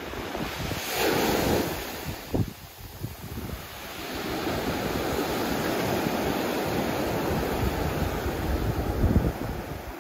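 Atlantic surf: small waves breaking and washing up a sandy shore. One wash comes about a second in, then a longer surge builds from about four seconds in. Wind buffets the microphone throughout.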